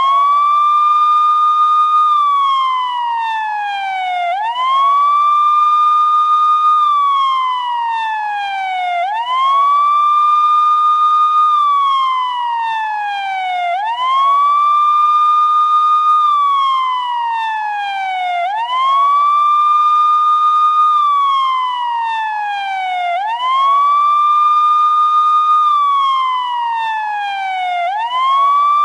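Emergency vehicle siren sounding a slow wail. Each cycle rises quickly in about a second, holds high for about a second, then glides slowly down over a few seconds, repeating evenly about every four and a half seconds.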